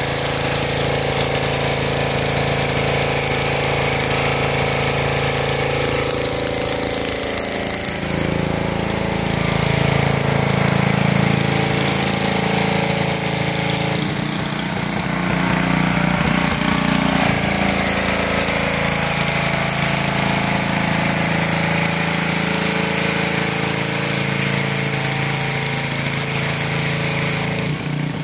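Pressure washer running steadily, its engine humming under the hiss of the high-pressure water jet from the wand striking the concrete.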